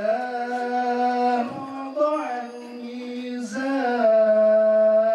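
A man's solo voice chanting a religious recitation into a microphone, in long held notes that slide from one pitch to the next; the longest and loudest note comes near the end.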